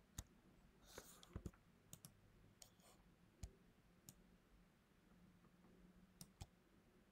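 Faint clicks of a computer mouse, about ten of them scattered irregularly, some in quick pairs, with a pause of about two seconds before the last two near the end.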